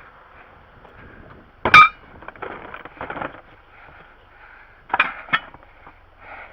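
Metal tools being handled and put away: one sharp metallic clang that rings briefly about two seconds in, then a couple of lighter knocks around five seconds in.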